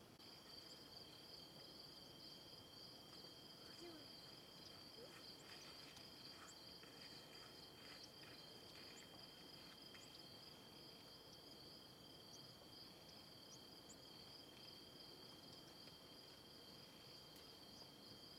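Faint, steady chorus of crickets trilling, with a few light ticks near the middle.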